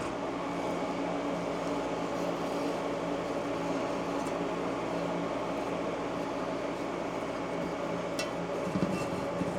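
A steady mechanical hum holding a few constant tones, with a faint click about eight seconds in.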